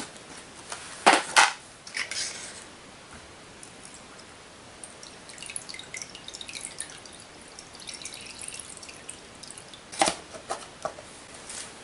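Two sharp knocks about a second in and more about ten seconds in, as a plastic bucket lid and a two-stroke cylinder are handled. In between, liquid drips and trickles in light patters off the cylinder, held up out of a bucket of Nikasil-stripping solution.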